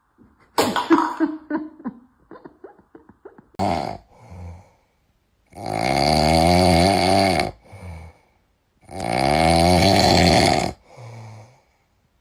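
Loud snoring: two long snores about three seconds apart, after a patter of small clicks and knocks in the first few seconds.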